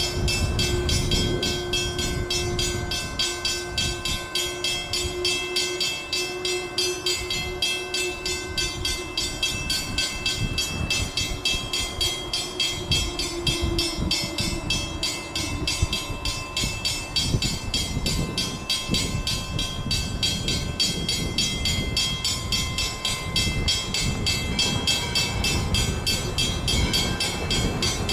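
Grade-crossing signal bell ringing in rapid, even strokes as ALCO-built steam locomotive #40 comes up to the road crossing with its train. The locomotive rumbles underneath, and a held whistle tone runs through the first half.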